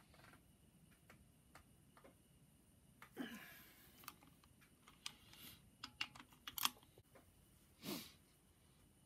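Faint, scattered metallic clicks and clinks of a ratchet wrench and torque-angle gauge being handled on cylinder head bolts. There is a quick run of sharp clicks in the middle, and two brief louder scrapes, one about three seconds in and one near the end.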